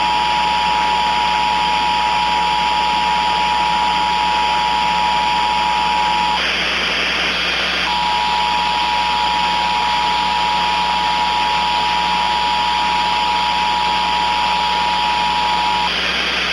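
Emergency Alert System attention signal: two steady tones sounding together, under loud static hiss. The tones drop out for about a second and a half midway, then resume and cut off just before the end, leaving the static, as on a broadcast with poor reception.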